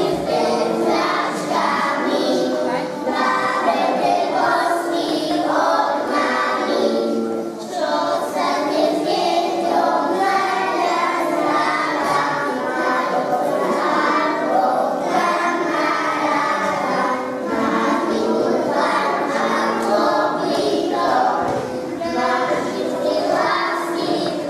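A group of young children singing a song together, with musical accompaniment.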